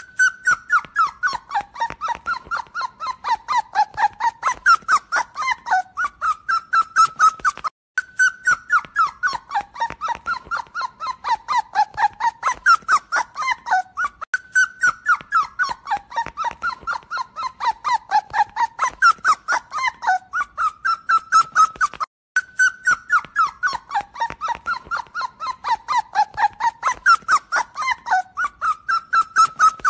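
A recording of a puppy crying in distress: rapid, high whimpering squeaks about five a second, wavering up and down in pitch. The sound repeats as a loop roughly every seven to eight seconds, with short breaks between repeats.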